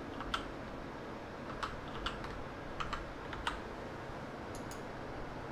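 Computer keyboard typing: several scattered, irregular keystrokes.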